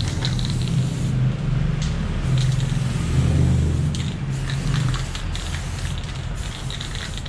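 Aerosol spray paint can hissing as black paint is sprayed on a wall, in several long bursts with brief breaks between them. A steady low hum runs underneath.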